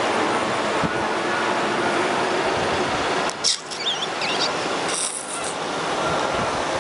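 Steady rushing of river rapids, a loud even hiss, with a few short high squeaks a little past halfway.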